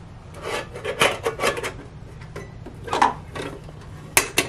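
Stainless steel mess kit's lid scraping and rubbing on the pot rim as it is fitted on, in a series of short scrapes, with a couple of sharp metal clicks near the end as the folding handle is swung over.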